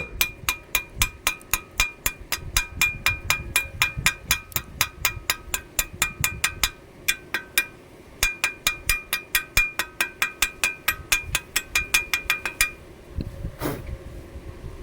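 Chipping hammer rapidly tapping slag off a fresh arc weld bead on steel, several ringing metal strikes a second, with a short break midway; the tapping stops near the end.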